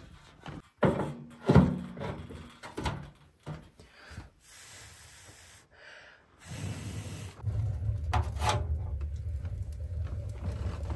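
Clanks and knocks from the hinged sheet-metal door of a cylindrical wood-burning stove as it is opened and handled, with wood being moved about inside. A low steady rumble sets in about six seconds in.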